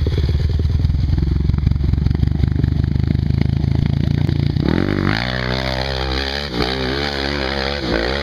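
Suzuki QuadSport Z400 ATV's single-cylinder four-stroke engine pulling up a steep dirt hillclimb. It runs loud, low and rough at first; about halfway through it changes to revving whose pitch rises and falls again and again.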